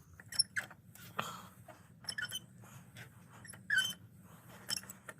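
A ratchet-free breaker bar and socket working the oil filter housing cap loose on a Ford 6.4 diesel: a series of scattered clicks and short squeaks, about one a second.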